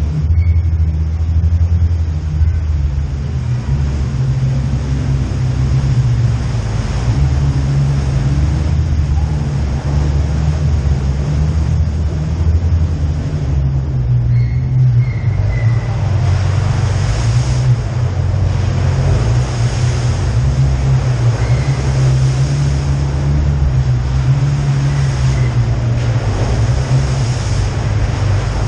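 Jeep Wrangler JK driving slowly through a tunnel: a steady low engine drone with the rumble of tyres over a wet, rocky floor.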